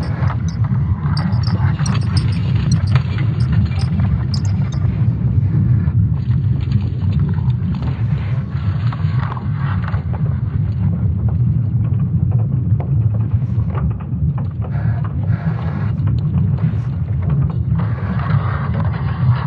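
Earth's magnetic field made audible from ESA Swarm satellite data: a steady deep rumble with scattered crackles over it, thickest in the first few seconds.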